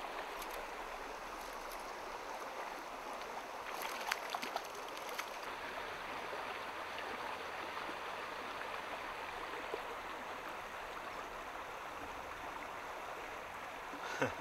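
Shallow moorland stream running steadily over rocks, with a few brief clicks about four seconds in.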